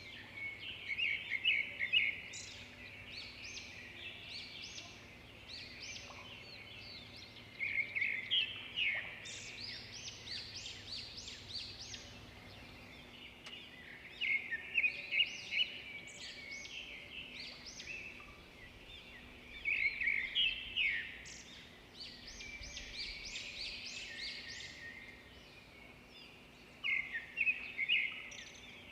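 Many small songbirds chirping and twittering continuously, with a louder, rapid chattering phrase coming back about every six seconds.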